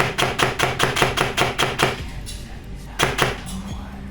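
Airsoft SPR rifle, an ICS build with a brushless motor tuned to about 500 FPS, firing a fast string of shots at about six a second that stops about two seconds in, then two more quick shots about three seconds in.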